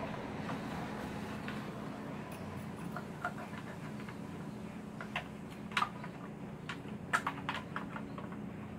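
Keys of a Razer BlackWidow Ultimate 2016 mechanical keyboard being typed on. Scattered single key clicks come first, then a quicker run of keystrokes about seven seconds in.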